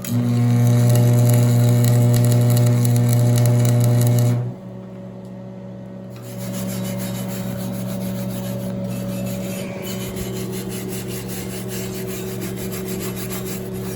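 Electric shop machinery humming steadily with a hissing haze over it, cutting off suddenly about four and a half seconds in. About two seconds later a quieter, lower-pitched machine hum starts and keeps going.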